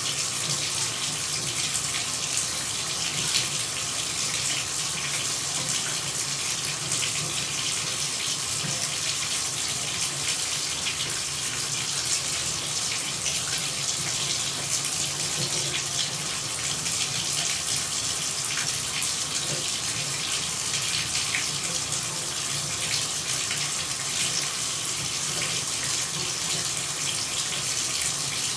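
Running water pouring steadily: an even, unbroken hiss with tiny splashes scattered through it.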